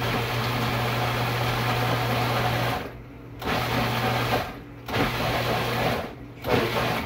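Cuisinart food processor motor pulsed on and off, blending roasted tomatoes and peppers with stock into soup while working through the chunks: one run of nearly three seconds, then two shorter pulses of about a second each.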